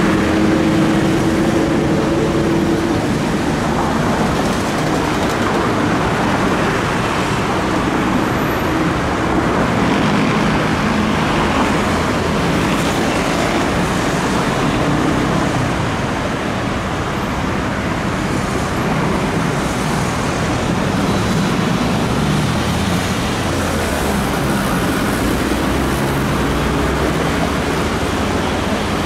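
Continuous traffic noise from a busy city road, with motor vehicles running past. A steady engine hum fades out in the first few seconds.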